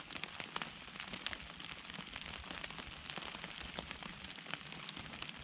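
Light, steady pattering of precipitation on a hammock tarp, with many small scattered ticks over a soft hiss.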